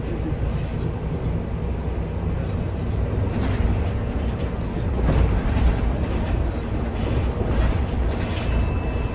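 Interior sound of a MAN Lion's City city bus under way: a steady low rumble of engine and road, with occasional rattles from the cabin. A brief high tone sounds near the end.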